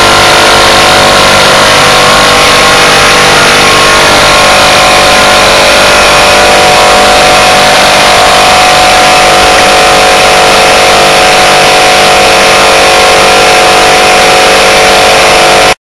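Opened hermetic refrigerant compressor running without its lubricating oil, with antifreeze in its shell: a loud, steady mechanical din with a strong electric-motor hum, the compressor labouring toward seizure. The sound cuts off abruptly near the end.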